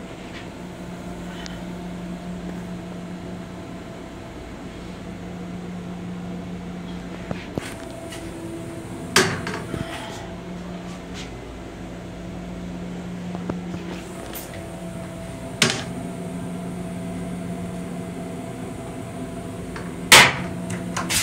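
Steady hum of an M7 electric railcar heard inside its small restroom, with three sharp plastic knocks as the toilet lid is handled, the loudest near the end.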